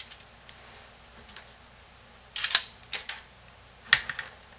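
Sharp clicks and light knocks of a Dell Inspiron E1505 laptop's plastic casing and detached display assembly being handled and set down. A few scattered clicks, the loudest clusters about two and a half and four seconds in.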